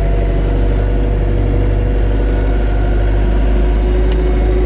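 Vehicle engine running steadily, with a heavy low rumble and a constant pitch.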